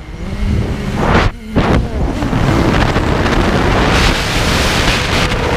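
FPV freestyle miniquad heard from its onboard camera while diving with the throttle chopped: a loud rush of air over the frame and propellers. The level drops sharply twice, near the start and about a second in. A faint motor whine rises again under the rush near the end.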